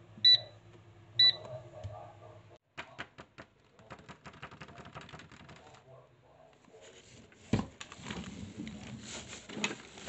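Kmart Anko 1.5-litre air fryer's touch control panel giving two short high beeps about a second apart as the temperature is stepped up. Then plastic food packaging crinkling and rustling as it is handled, with a thump a few seconds later.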